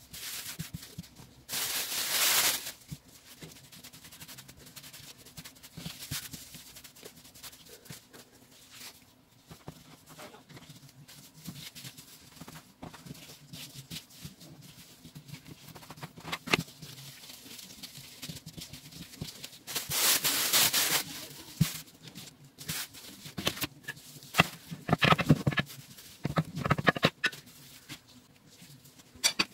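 Latex-gloved hands working bun dough on a countertop: soft pats, taps and glove rustles. There are two longer swishes, about two seconds in and about twenty seconds in, and a run of quick taps near the end.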